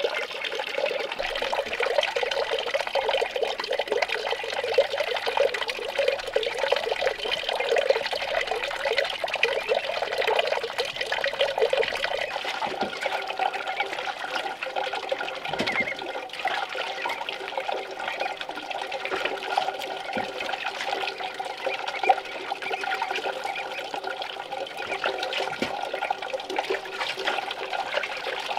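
Steady running water with splashing as a dog is washed by hand in a metal basin.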